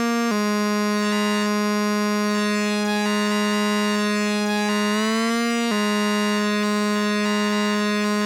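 Behringer MonoPoly analog synthesizer holding one steady, buzzy note rich in overtones. The pitch jumps up briefly at the start, and about five seconds in it glides up for under a second before dropping back to the held note.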